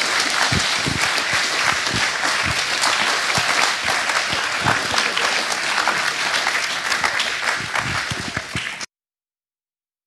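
Audience applauding, dense and steady clapping that stops suddenly about nine seconds in.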